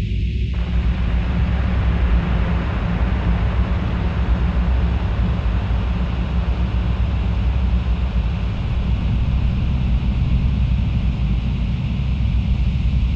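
Ambient electronic drone music: a steady low rumble under a wash of hiss-like noise. About half a second in, noise fills in the middle range.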